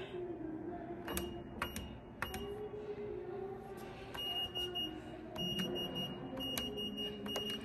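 Vending machine's metal keypad beeping as its keys are pressed, each press a sharp click with a high beep: a short beep about a second in, then several longer beeps in the second half. A low steady hum runs underneath.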